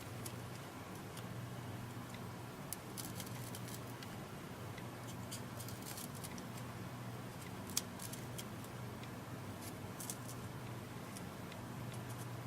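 Scattered small clicks and ticks of hand tools and parts being handled on a tablet under repair, with one sharper click a little before the eight-second mark, over a steady low hum.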